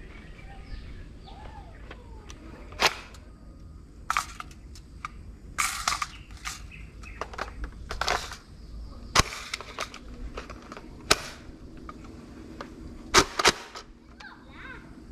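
Sharp plastic clacks and clicks of a Nerf Rival blaster being reloaded by hand as the magazine is handled and seated and the blaster is worked. About nine uneven clacks, with a quick double clack near the end.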